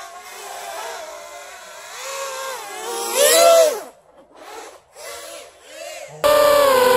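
FPV quadcopter's brushless motors (RCX 2208 2300kv on 6-inch props) whining, heard from the drone's onboard camera, the pitch rising and falling with the throttle. About three seconds in a loud burst climbs and then falls in pitch; the sound drops almost away between short bursts, then jumps suddenly to a loud steady whine near the end.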